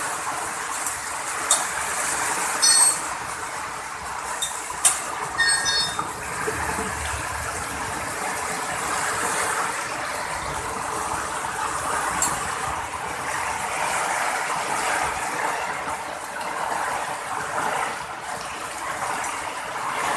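Heavy rain falling steadily on the road and a shelter roof, with water streaming off the roof edge. A few short clicks and two brief high-pitched tones sound at about 3 and 6 seconds in.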